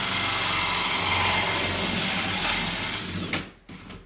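Cordless drill driving a 3.5-inch hole saw through a wall, running steadily, then stopping about three seconds in, with two short bursts near the end.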